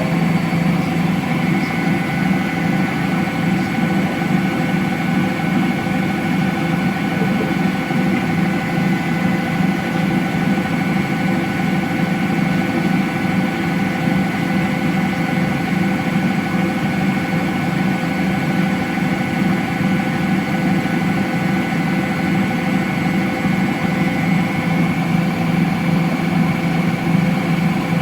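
Electrolux CompassPRO WH6-27 27 kg commercial washer-extractor spinning a single duvet in a spin-only cycle, a loud, steady hum with several constant tones as the drum turns at an even speed.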